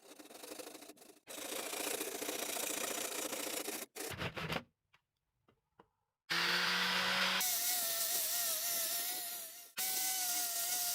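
Wood spinning on a homemade lathe while a tool or abrasive rubs against it: first a rough scraping and rubbing, then, after a short near-silent gap, a steady whine with a slightly wavering tone. The sound cuts off and restarts abruptly several times.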